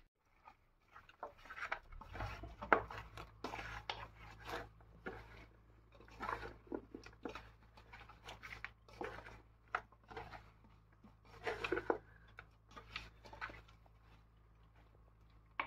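Hands squeezing and mixing raw turkey pieces with sliced onions and spice powder in a metal pot: irregular wet crunching and squelching. A low steady hum runs underneath.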